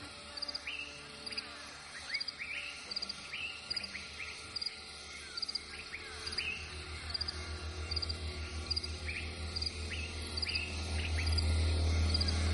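Crickets chirping in short regular pulses about once a second, with other quick upward-sweeping chirps among them. A low, rapid pulsing throb underneath grows louder from about halfway on.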